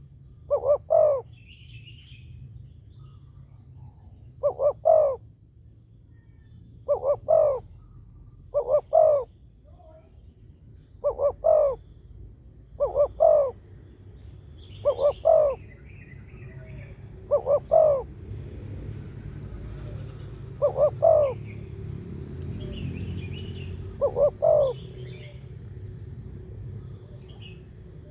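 Spotted dove cooing: a short phrase of two or three low coos, repeated about every two to three seconds. Faint chirps of other small birds sound between the phrases.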